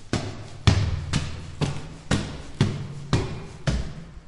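Footsteps climbing hard stairs at an even pace, about two steps a second, each step a sharp knock with a short echo.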